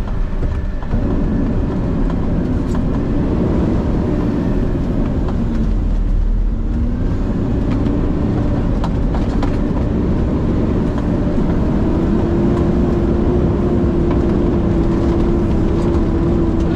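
Garbage truck's diesel engine running steadily. Its pitch dips and recovers about six seconds in, then rises and holds higher from about eleven seconds in.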